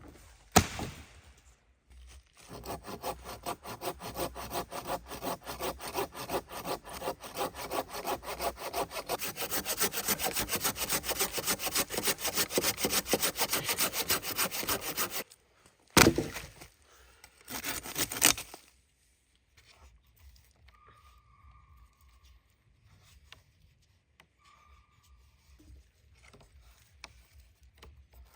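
Hand saw cutting through wood in rapid, even back-and-forth strokes that grow louder, then stop suddenly. A sharp knock and a short rasping burst follow, then it goes quiet.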